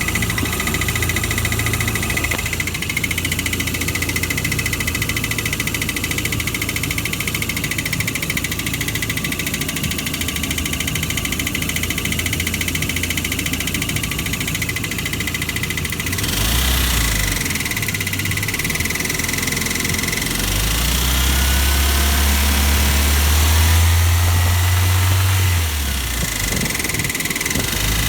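Toyota 4A-FE 1.6-litre four-cylinder engine running with a knock. It idles steadily for about sixteen seconds, is then revved a few times, and held at higher revs for about five seconds before dropping back and rising again near the end.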